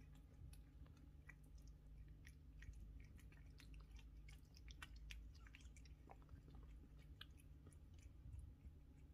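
Two British Shorthair cats chewing food from a plate: faint, irregular little crunches and clicks, close together.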